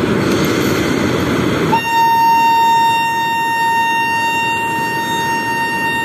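Electric locomotive horn sounding one long, steady blast, the train's signal as it gets ready to depart. It starts about two seconds in over a steady background din and holds on without a break.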